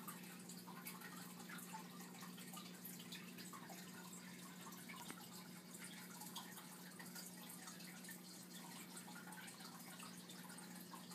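Faint aquarium filter running: water trickling and dripping with many small pops, over a low steady hum.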